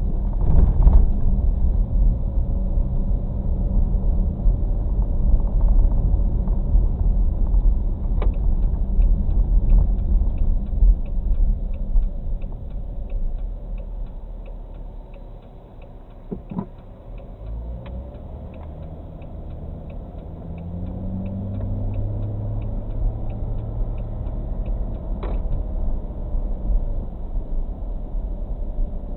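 Car road and engine noise heard from inside the cabin, a steady low rumble. Through the middle, a turn signal clicks at an even rate of about two or three clicks a second while the car slows and turns. The engine then rises in pitch as the car speeds up again.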